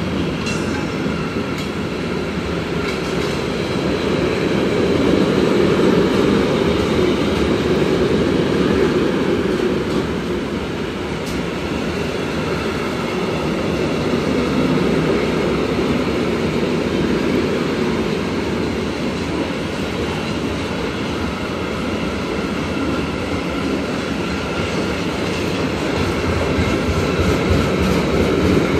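A long freight train of flat wagons, some carrying tank containers, passing at speed. Its wheels make a continuous loud rumble and clatter on the rails that swells and eases as the wagons go by, with a faint high wheel whine over it.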